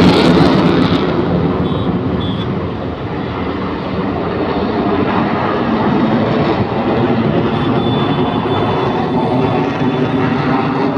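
Aircraft flying past at an air show, its engine noise fading over the first three seconds, then swelling again and holding steady.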